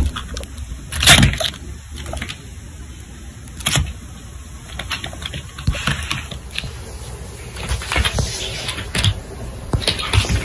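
Fleece blanket rustling as it is handled and lifted, with irregular soft scuffs and knocks and a louder bump about a second in.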